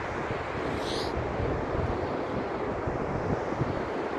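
Wind buffeting the microphone on an open beach, an uneven low rumble over a steady hiss, with surf mixed in.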